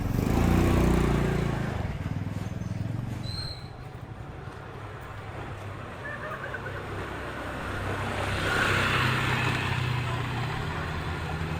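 Street ambience with small motorcycle engines passing: one goes by loudly in the first second or two, and another rises again about eight seconds in.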